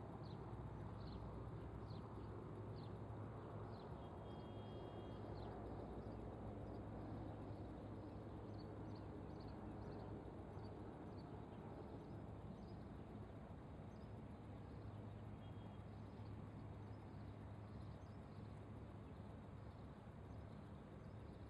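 Faint steady low hum of waterside ambience, with scattered short high chirps of small birds, clearest in the first few seconds.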